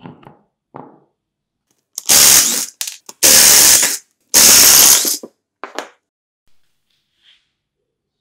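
Three short bursts of a loud handheld power tool, each under a second, with small handling clicks and knocks around them.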